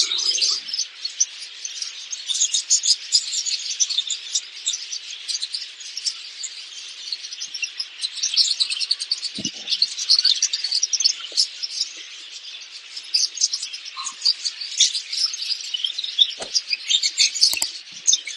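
A large crowd of caged budgerigars chirping and chattering all together in a dense, continuous high twittering. A dull knock sounds about halfway through, and a few sharp clicks near the end.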